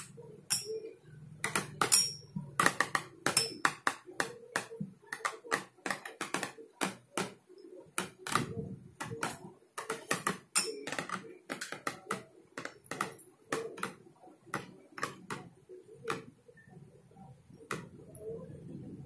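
Two metal Beyblade spinning tops clashing as they spin in a plastic basin: rapid, irregular clicks and clacks of metal on metal and on the bowl wall, some with a short metallic ping. The hits thin out over the last few seconds.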